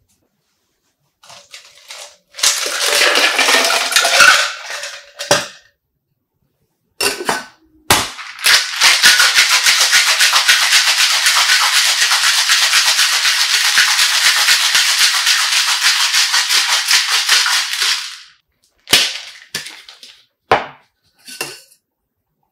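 Metal cocktail shaker tins shaken hard, with ice rattling rapidly inside, in a steady burst of about ten seconds. Before it comes a shorter shake of about three seconds and a couple of sharp knocks, and near the end a few short metal clinks as the tins are knocked apart.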